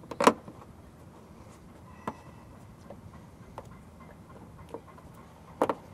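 A few sharp clicks and knocks of hands and tools on a truck bumper's bolts and plastic clips as they are fitted: a loud click about a quarter second in, a smaller one around two seconds in, faint taps after, and a loud double click near the end.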